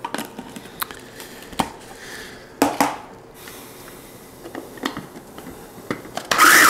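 Light clicks and knocks of handling, then near the end the KitchenAid 3.5-cup food chopper's motor starts with a loud whir, chopping dried mango and panko breadcrumbs.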